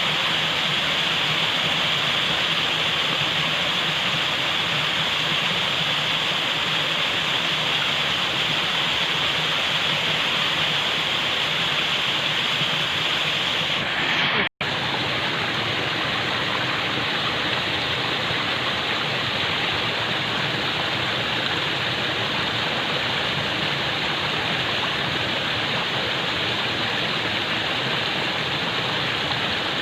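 Steady rush of falling water. About halfway through it drops out to silence for a moment where the recording is cut, then resumes slightly duller.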